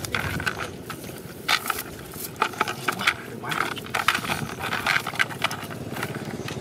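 Rustling and irregular sharp clinks as a nylon cast net with a chain leadline is handled and fish are pulled from it over a plastic bucket. A steady low hum runs underneath.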